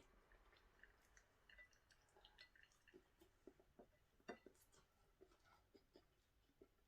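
Near silence with faint, scattered wet clicks of a person chewing fried chicken gizzard with the mouth close to the microphone.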